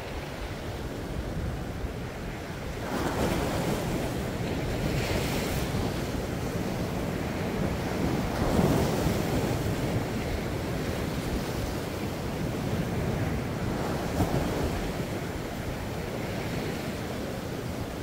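Sea waves surging and breaking, swelling several times, with the biggest surge about halfway through.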